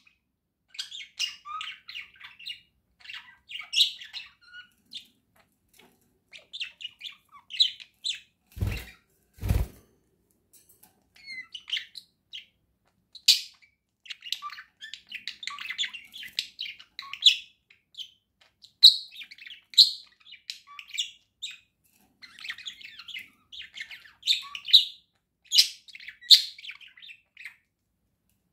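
Pet budgerigars chirping on and off in short, high twittering calls. Two dull thumps come in quick succession about nine seconds in.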